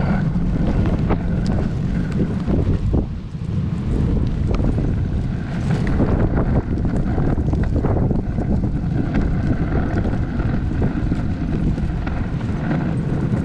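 Wind buffeting a sled-mounted GoPro's microphone over the steady rushing scrape of dog-sled runners gliding on packed snow as the team runs, with a brief lull about three seconds in.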